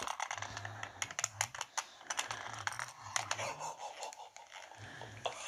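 ASMR sounds of guns being rubbed and handled close to a microphone: a dense run of quick scratches and clicks, with a faint low sound coming and going underneath.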